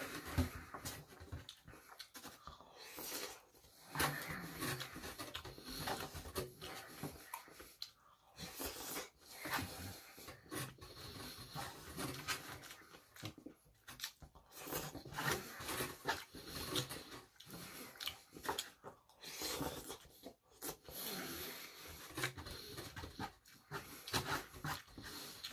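Close-up eating sounds: chewing and wet mouth noises over vermicelli noodles, with breathing and irregular clicks of a plastic fork in a foam takeout box.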